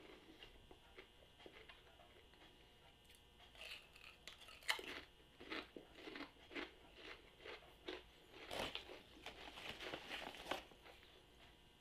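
A potato chip being chewed with the mouth close to the microphone: faint, irregular crunches that begin a few seconds in and come in uneven clusters.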